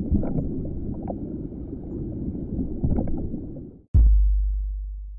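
Underwater ambience: a low rumbling water noise with bubbling gurgles. It cuts off just before four seconds in, when a deep boom hits and slowly dies away.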